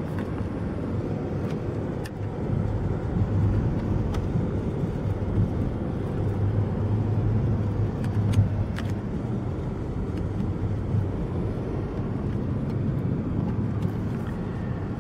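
A car driving on a country road, heard from inside the cabin: a steady low rumble of road and engine noise, with a few faint clicks.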